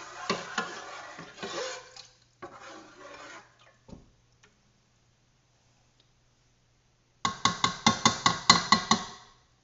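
Kitchen clatter: rustling and handling noise with light knocks, then a utensil rapidly striking a pan, about five or six sharp clinks a second for two seconds near the end.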